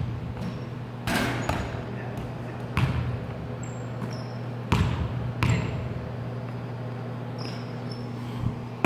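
A basketball striking a hardwood gym floor, four hard thuds a second or two apart that echo around the hall. A steady low hum runs beneath.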